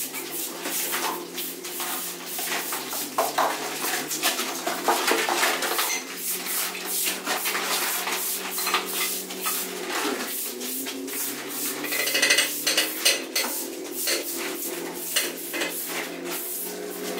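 Hand tools scraping and clinking on a wet cement floor screed, many short scrapes and taps in irregular succession, over a steady low hum.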